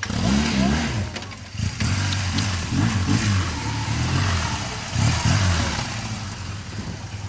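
BMW R 1200 GS motorcycle's flat-twin boxer engine revving up and down in repeated throttle blips as the bike is ridden slowly over rough dirt. It grows quieter near the end as the bike moves past.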